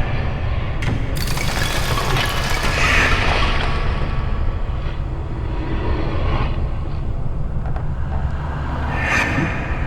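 Layered horror ambience sound effects over a steady low rumble. About a second in there is a sudden crash that swells and dies away over a few seconds, and another swell comes near the end.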